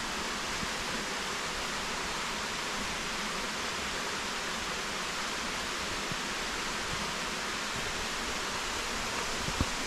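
Steady rushing hiss of a mountain stream and its waterfall, even and unbroken, with a soft knock near the end.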